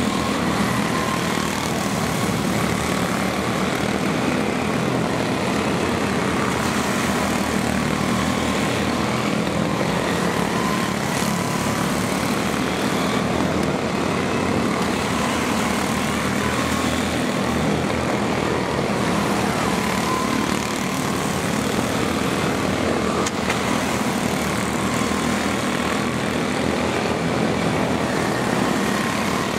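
Several quarter midget race cars' small single-cylinder engines buzzing together in a steady, continuous drone as they lap a dirt oval.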